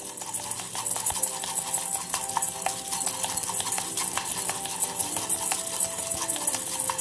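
Roasting coffee beans rattling and scraping in a nonstick frying pan as a wooden spatula stirs them, a steady hiss dotted with small clicks. Background music plays along with it.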